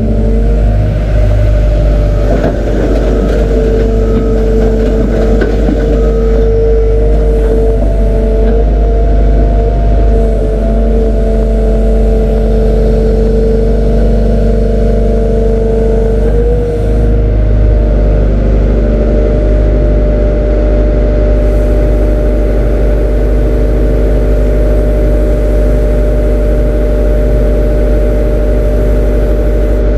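Heavy diesel engine running steadily with a deep hum, from a Liebherr R 918 crawler excavator moving close by. The engine note shifts slightly in the first half, then holds even.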